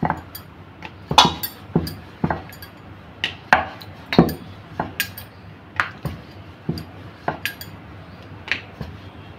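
Wooden rolling pin rolling out a disc of maida dough on a wooden rolling board, with irregular wooden knocks and clacks about twice a second as the pin and board shift under the strokes.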